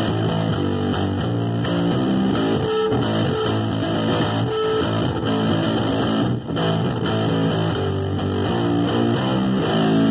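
Electric bass guitar, amplified, played as a steady run of plucked notes, with a brief dip in loudness about six and a half seconds in.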